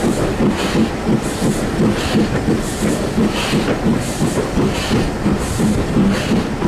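BR Fairburn 2-6-4 tank steam locomotive and its carriages running, heard from a carriage window: a steady rumble and clatter of wheels on the rails, with a hiss that repeats roughly every second.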